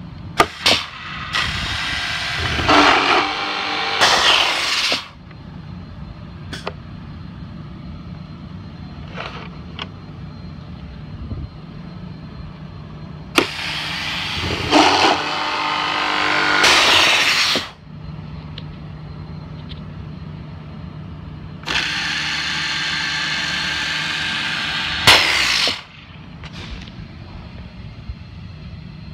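Hettich Blue Max hinge boring and inserting machine running through three cycles: each starts with sharp clacks, runs for about four seconds with a loud motor whine and hiss, and cuts off suddenly. A steady low hum continues between the cycles.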